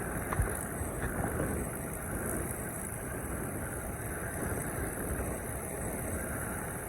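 Steady rumble of vintage fighter planes' piston engines running, heard from a distance, with one short knock about half a second in.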